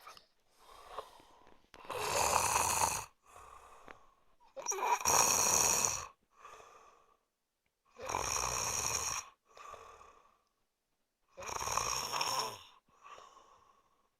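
A man snoring in his sleep: four loud snores about three seconds apart, each followed by a quieter, shorter breath.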